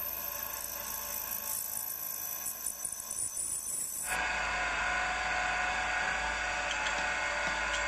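Small milling machine's spindle running steadily with a drill bit, drilling bolt holes through a metal bearing flange. The sound changes abruptly about four seconds in, at a cut, then runs on steadily.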